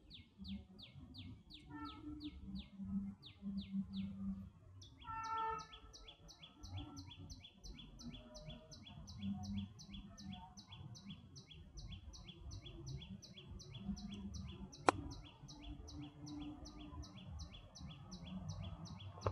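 Faint, rapid high chirping, short notes falling in pitch and repeated evenly about five times a second, with a second, higher series of chirps joining about five seconds in. A single sharp click comes near the fifteen-second mark.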